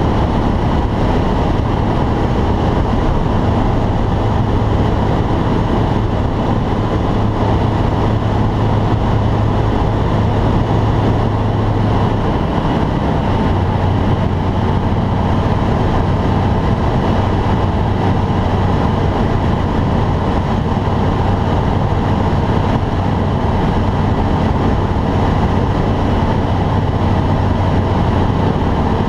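Light aircraft's piston engine and propeller running steadily with airflow noise, heard from inside the cockpit. The engine note drops slightly about twelve seconds in, as the power is eased back a little.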